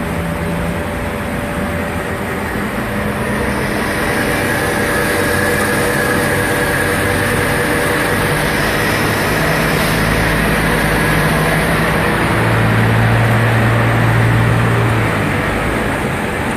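Amada CRA-300 band saw running steadily under test. A steady high tone joins about three seconds in, and a deeper hum swells between about twelve and fifteen seconds in.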